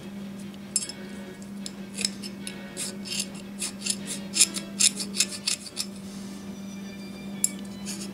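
Needle file scraping casting flash off a small cast metal part, in short quick strokes about three a second. It stops about six seconds in, with one more stroke near the end.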